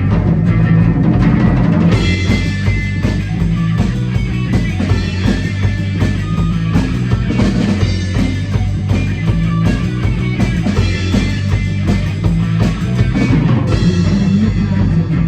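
Rock music: a full band with drum kit and heavy bass. About two seconds in, cymbals or hi-hat come in with a steady ticking on top, easing off again near the end.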